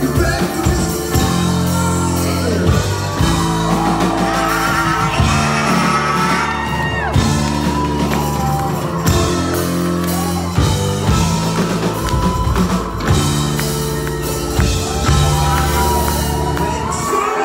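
Live band playing a song, with drums, bass, electric guitars and keyboards under a lead vocal, in a club hall.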